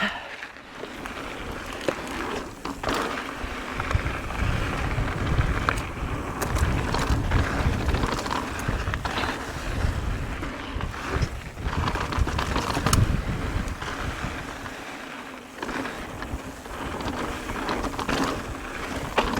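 Mountain bike riding over a rough dirt trail: steady tyre noise with frequent rattles and knocks from the bike. A low wind rumble on the microphone is strongest in the middle.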